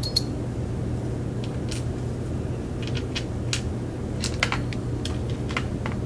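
Light metallic clicks of Abloy Disklock discs and spacers being worked out of the brass lock core and set down in a parts tray: a dozen or so sharp ticks, scattered and bunched toward the second half, over a steady low hum.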